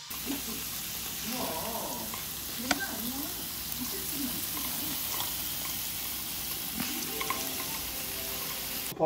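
Sliced pork belly sizzling on a grill pan over a portable gas stove: a steady frying hiss, with one light click a few seconds in and faint talk underneath. The sizzling cuts off suddenly near the end.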